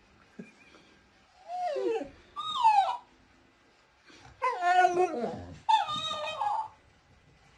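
A dog whining and howling in four drawn-out calls that waver up and down in pitch, the last two longer and louder.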